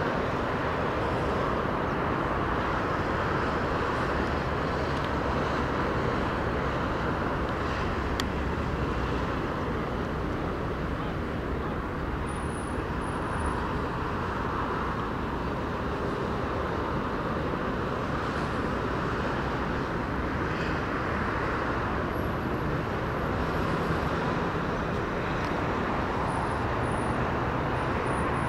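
Distant city traffic noise: a steady, even rumble and hiss that does not let up. A few faint, short high-pitched chirps come through about halfway through and again near the end.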